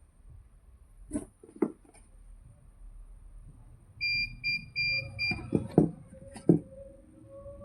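Electric chiropractic adjusting gun: two sharp clicks, then four short high electronic beeps from the unit, then three loud snapping strikes of its stylus.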